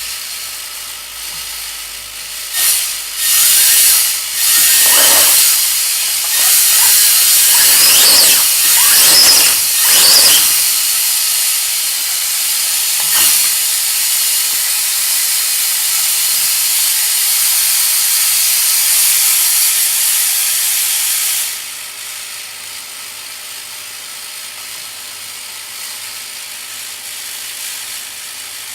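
3D-printed scale V8 model engine in an RC crawler, driven by a small electric motor, running with a fast, hissy mechanical whir. It surges several times in the first ten seconds as it is throttled, then drops to a quieter steady idle about 21 seconds in.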